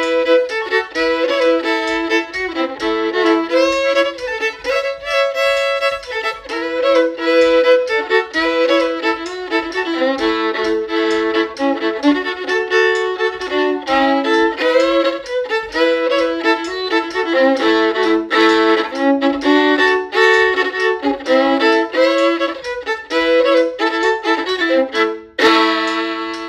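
Solo fiddle bowing a brisk newgrass-style fiddle tune in A major, quick changing notes with two strings often sounding together. Near the end it lands on a long held final chord that rings on.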